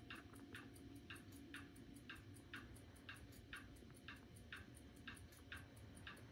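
Clock ticking faintly and evenly, about two ticks a second, over a faint steady hum.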